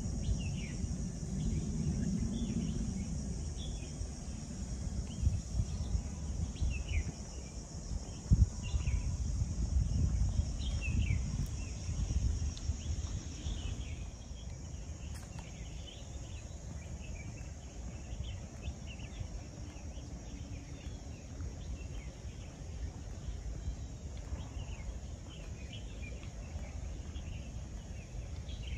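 Park ambience: a steady high insect drone with scattered short bird chirps over a low rumble. There is a sharp knock about eight seconds in.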